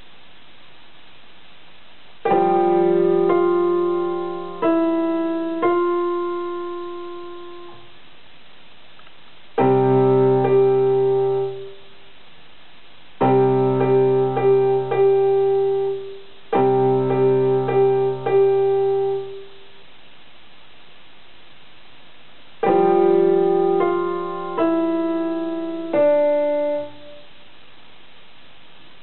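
A child playing a portable electronic keyboard with a piano-like voice, in short phrases of chords separated by pauses of a few seconds. Some chords ring and fade away, others are held and then cut off sharply, with a few quick repeated chords in the middle.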